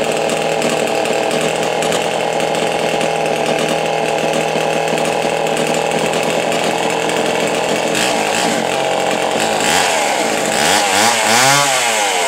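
Homelite Super XP 1130 gear-drive two-stroke chainsaw running steadily, then revved up and back down a few times near the end.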